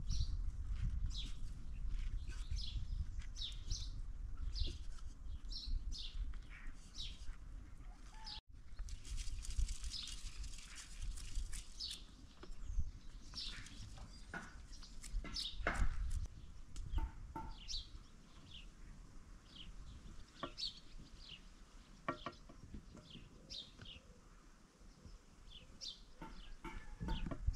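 Small birds chirping over and over in the background, with soft clicks and taps as slices of eggplant and zucchini are laid by hand into a metal pot, over a low rumble.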